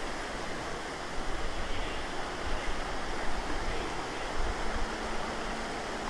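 Steady rush of river water spilling over a low concrete step in a channel, an even noisy wash without pauses.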